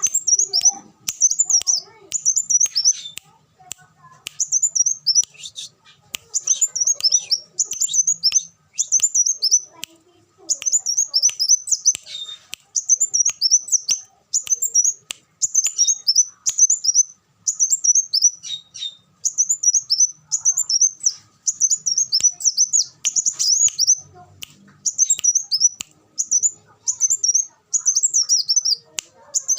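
Kolibri wulung sunbird singing: rapid, high, thin chirping phrases repeated about once a second with short gaps between them.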